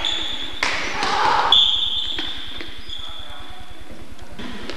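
Gym practice sounds: a basketball bouncing on the hardwood floor, a rush of noise near the start, and a single high steady tone about a second and a half in that lasts about a second and a half and fades. A steady low buzz runs underneath.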